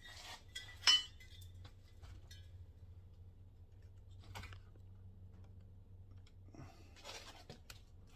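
Scattered light clicks and rattles of small objects being handled, the sharpest about a second in, with more clinks about halfway through and near the end.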